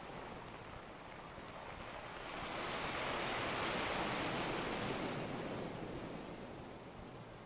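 A rush of surf-like water noise that swells to a peak midway and then fades away again.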